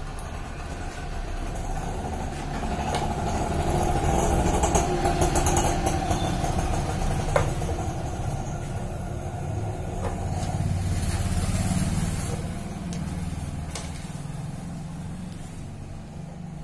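A motor vehicle's engine rumbling, swelling over several seconds and then fading, with a few light clicks on top.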